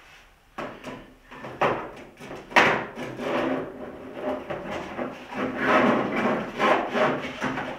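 Handling noise: three sharp knocks, about half a second, a second and a half and two and a half seconds in, then a longer stretch of rubbing and rustling.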